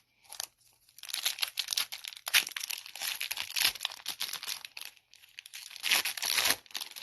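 Plastic foil trading-card pack wrapper being torn open and crinkled by hand: a dense crackling that starts about a second in, dips briefly near five seconds and swells again around six.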